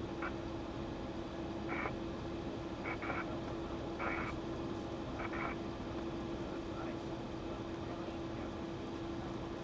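Single-engine light airplane's engine and propeller droning steadily, heard inside the cockpit, with a few short, muffled voice-like bursts in the first half.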